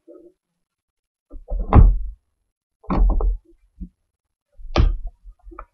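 Small cardboard box being handled and pulled open on a tabletop, making three loud thuds, about a second and a half, three, and five seconds in.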